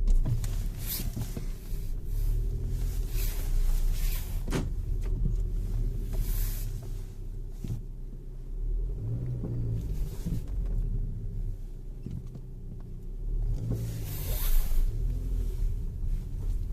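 Renault Duster running and moving off at low speed, with a steady low hum and a few single sharp knocks or clicks, the clearest about four and a half and seven and a half seconds in.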